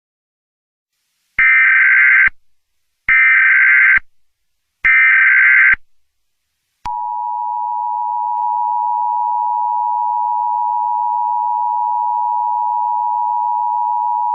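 Emergency Alert System SAME header: three identical bursts of buzzing digital data tones, each just under a second long. About a second later the steady two-tone EAS attention signal starts and holds on unbroken, announcing the start of a broadcast alert.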